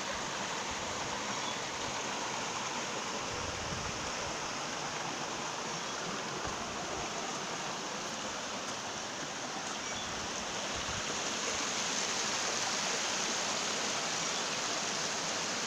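Water of a rocky stream running over stones: a steady rushing hiss that grows a little louder about three-quarters of the way through.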